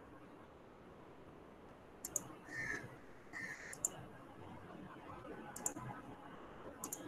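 A few faint, scattered computer mouse clicks, about five in all, with two brief faint noises between them near the middle: clicking through the screen-share controls to present a slide.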